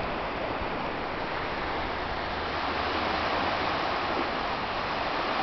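Steady rush of surf and wind, an even noise with no separate sounds in it, swelling slightly near the end.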